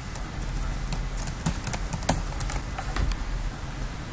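Computer keyboard keys clicking in a quick, irregular run as a password is typed.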